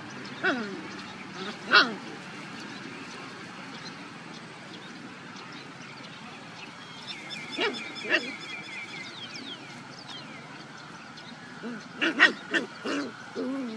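Seven-week-old puppies yipping and growling as they play-fight. A few short yips come near the start and in the middle, and a quick cluster near the end.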